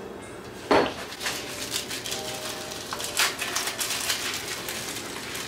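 A single sharp knock about a second in, then a run of crisp paper rustling and crinkling as a small paper label is handled and peeled.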